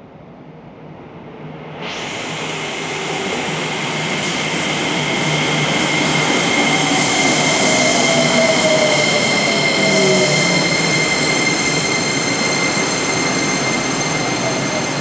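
JR Kyushu 303 series electric train arriving at an underground subway platform: a loud rush of running noise sets in suddenly about two seconds in and holds, with several steady high whines over it. Partway through, a lower tone falls in pitch as the train slows.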